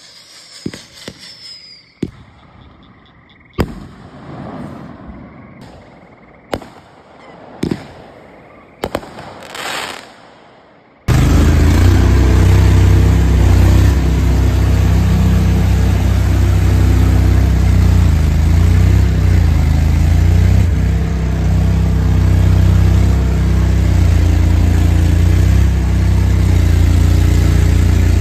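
Fireworks going off: a scatter of sharp bangs and pops with a crackle. About eleven seconds in, a sudden cut to the loud, steady running of an Argo amphibious ATV's engine while it floats on a river.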